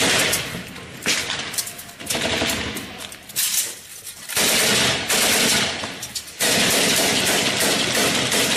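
Automatic gunfire in repeated bursts, loud, breaking into a long run of heavy firing from about six seconds in.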